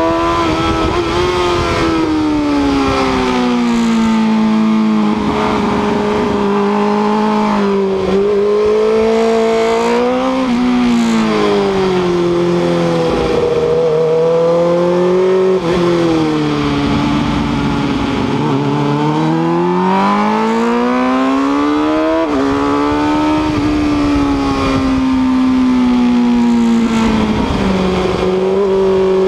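Onboard sound of a sport motorcycle's engine at track speed. Its pitch rises repeatedly under acceleration and falls as the rider brakes and shifts down for corners.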